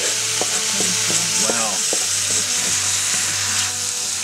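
Chopped meat sizzling as it fries in a large metal pot, with the scattered clicks and scrapes of a wooden spatula pushing it around.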